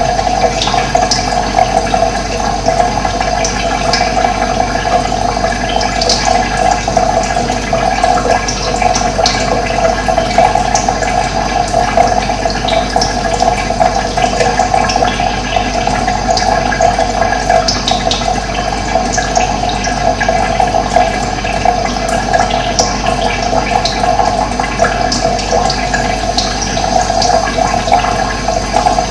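Steady running water, with brief high bird chirps scattered over it.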